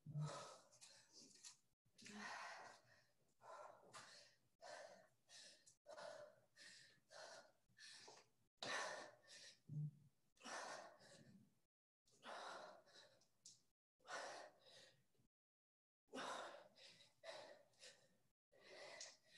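Faint heavy breathing from hard exercise: short, noisy breaths in quick succession, about one a second, with a few brief pauses.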